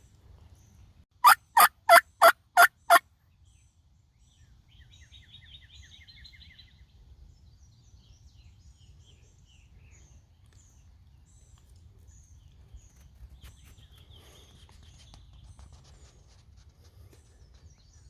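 Turkey yelping: six loud, evenly spaced yelps in under two seconds, near the start. Fainter songbird trills and chirps follow.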